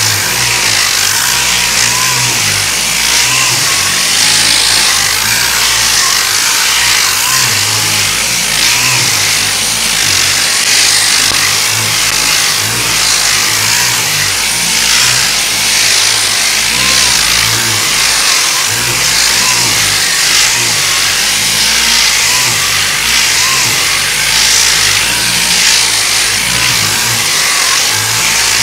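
Sandpaper rasping over cured body filler in repeated criss-crossing strokes, taking off the guide coat to show the high and low spots on the panel.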